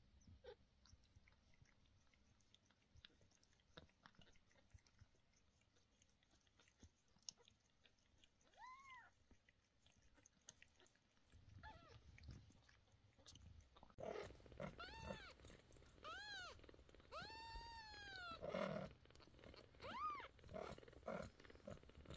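Mother cat licking and grooming a newborn kitten: soft wet licking clicks, with a low purr-like rumble coming in about halfway. About two-thirds of the way in, a run of about six short, high-pitched mews, each rising and falling in pitch, louder than the licking, after a single faint one earlier.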